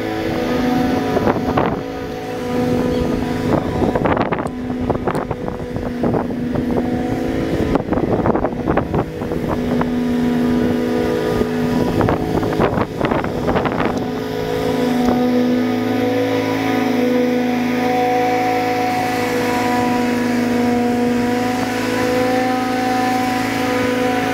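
Ferris stand-on mower's engine running steadily under load while mowing, blades cutting grass. Rough, uneven bursts of noise ride over the engine through the first half, then it settles into a steady hum.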